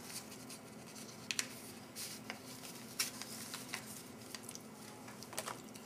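Faint rustling and crinkling of a wet-towelette packet and the moist paper towelette being pulled out and unfolded by hand, with a few soft clicks.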